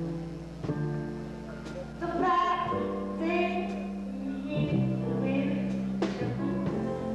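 Live small jazz band playing a slow tune: an upright bass holds long low notes under melodic lines from tenor saxophone and a high, light singing voice.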